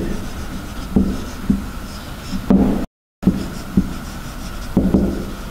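Marker writing on a whiteboard: a run of short, sharp knocks and rubbing as the marker tip strikes and drags across the board. The sound cuts out completely for a moment about halfway through.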